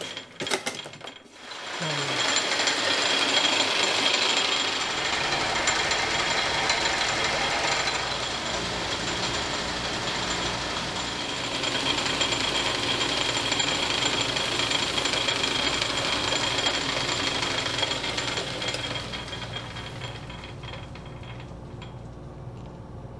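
South Bend metal lathe turning down a bar, the cutting tool taking a steady cut and throwing chips, with a thin high ringing over the machine's running noise. The cut builds up about two seconds in and the lathe runs down near the end.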